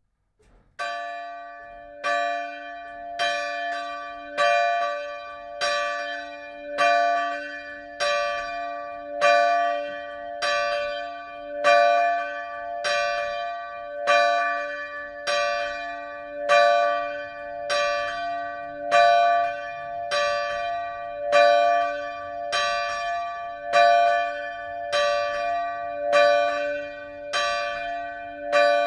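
A 1957 Petit & Fritsen bronze church bell, 687 mm across with strike note d2, swinging and rung by its clapper at about one stroke every 1.2 seconds. Its deep hum note sounds under each stroke. It begins a little under a second in, with the first strokes softer as the bell swings up, then rings out steadily.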